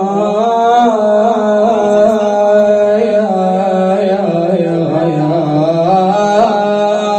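A male voice singing a long, unbroken wordless melodic line in the ornamented style of an Iraqi Shia lament (nai), its pitch gliding and turning.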